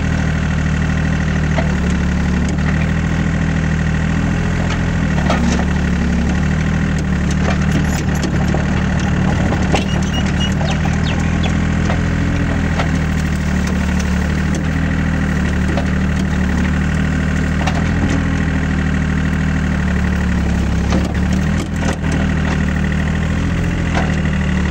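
Hitachi EX30 mini excavator's diesel engine running steadily as it works, with scattered light clicks and scrapes as the bucket rakes through dry grass and brush.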